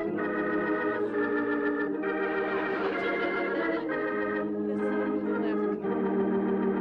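Melodramatic soap-opera organ sting: an organ plays a run of held chords, changing every second or two, as a dramatic cue.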